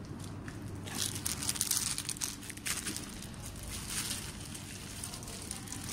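Crinkling, rustling handling noise as a plastic suction head is fitted onto a hydra facial handpiece and its hose is moved. The noise comes in bursts, about a second in and again between two and four seconds, over a low steady hum.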